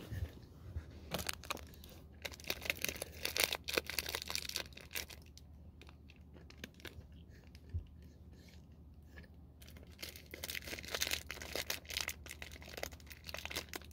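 Plastic fruit snack wrapper crinkling and tearing in the hands, in two bouts of dense crackling, over a steady low hum.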